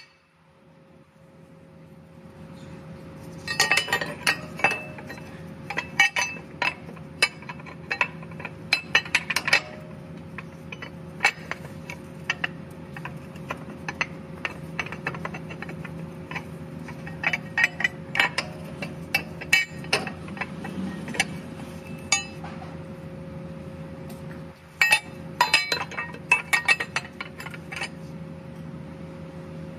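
Metal clinks and taps from tools and starter mounting hardware being handled, in quick clusters with short pauses between, over a steady low hum.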